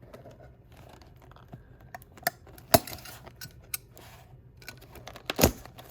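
Hands handling and opening a trading card box: scattered light clicks, taps and rustles, with two louder knocks about three seconds and five and a half seconds in.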